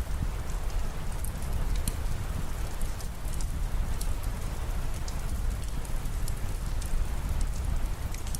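Steady rain falling, with many sharp drop ticks over a continuous wash and a deep low rumble underneath.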